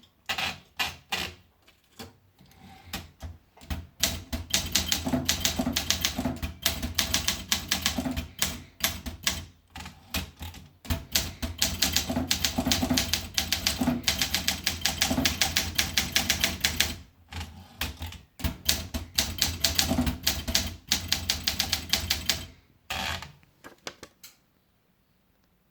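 Olympia SM8 manual portable typewriter being typed on: quick runs of key strikes clacking against the platen, broken by brief pauses, stopping shortly before the end.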